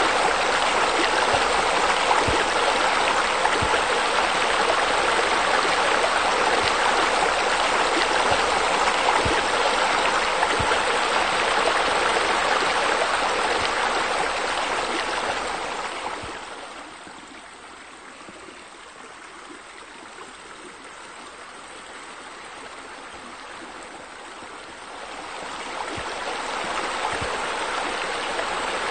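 Steady rushing splash of pool water features: fountain jets and bubblers falling into the water. About halfway through it fades to a faint murmur for several seconds, then swells back up near the end.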